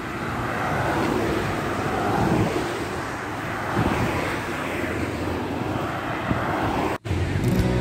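Cars passing on a road, a steady rush of tyre and engine noise that swells as they go by. It cuts off abruptly about seven seconds in and music starts.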